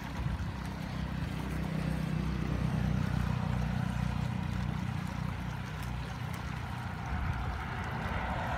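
Swollen, muddy floodwater rushing through a channel: a steady rushing with a low rumble. A motorbike passes on the road above around the middle, and a car near the end.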